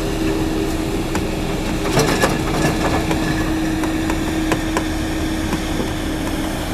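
Diesel engine of an excavator working from a barge, running steadily with a constant hum, with a few sharp knocks and clanks from the machine's bucket and arm, the loudest about two seconds in and two more around four and a half seconds.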